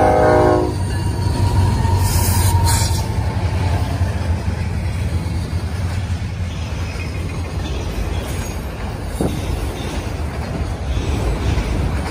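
Diesel freight train horn sounding a chord that cuts off about a second in, then the train rolling past: a steady low rumble of freight cars' wheels on the rails.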